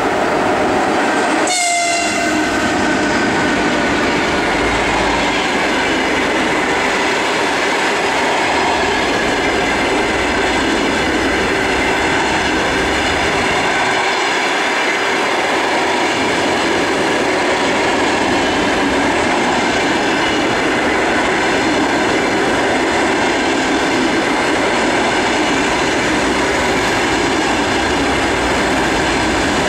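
An EP1M electric locomotive and its passenger coaches roll past close by with the steady noise of wheels on rail. Several steady whining tones run through it, and a brief tone falls in pitch about two seconds in.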